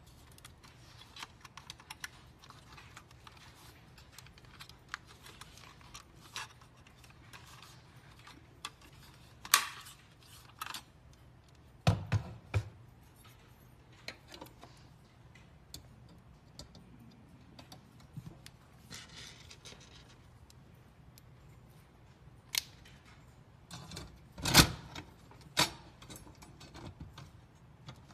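Scattered clicks and taps of a plastic wall-mount back box and amplifier panel being handled and set against a wall, with several louder knocks as the plastic parts bump each other and the wall.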